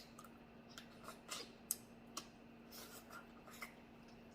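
Faint, sharp clicks and crackles of crab shell being worked open by hand while eating, about half a dozen scattered over a few seconds. A faint steady hum sits beneath them.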